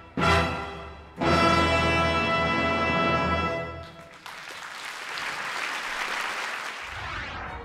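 Orchestral music ends on a loud held chord, then audience applause starts about four seconds in.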